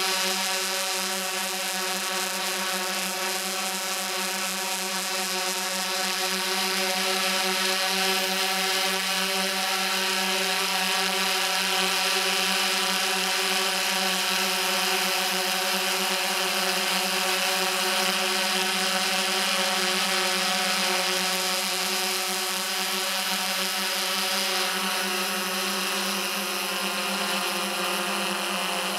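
The DJI S1000 octocopter's eight electric motors and propellers running steadily in flight, heard close up from the camera slung beneath it: a continuous whine of many stacked tones over a hiss.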